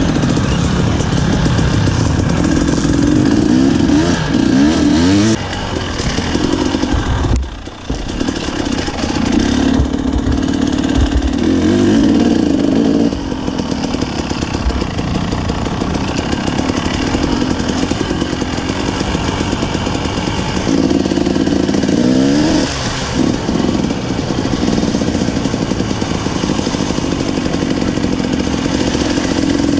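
KTM 300 two-stroke dirt bike engine heard from on the bike, revving and pulling up through the gears in rising sweeps. The throttle is shut off briefly about seven and a half seconds in before it picks up again.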